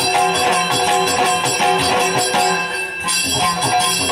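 Yakshagana dance music: chende and maddale drums beating fast over a steady drone, with bells jingling. The playing eases briefly about three seconds in.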